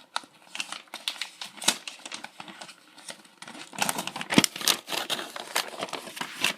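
A small paper instruction leaflet being unfolded and handled, crinkling and rustling in many short crackles that get busier and louder about four seconds in.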